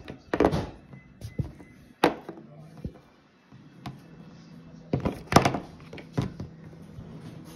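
Hard plastic animal figurines knocked and set down on a wooden surface: a series of irregular thunks and taps, loudest near the start and around five seconds in.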